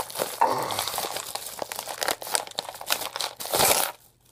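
Mail packaging bag crinkling and tearing as it is ripped open by hand, in a run of irregular rustles and crackles. It stops suddenly near the end.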